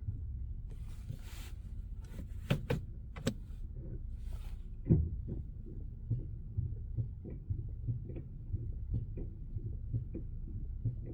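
Toyota Camry XV70's 3.5 V6 idling with a low hum. A few sharp clicks are followed by one loud knock about five seconds in, then a string of lighter knocks about twice a second. This is the knock heard when braking in reverse, which the owner likens to loose brake pads rattling.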